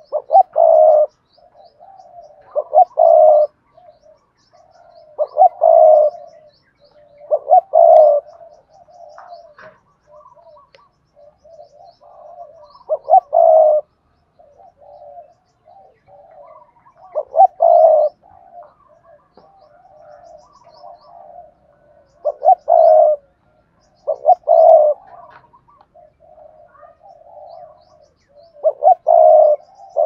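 Spotted dove cooing close to the microphone: loud, deep coo phrases every two to five seconds, with softer rolling coos in between.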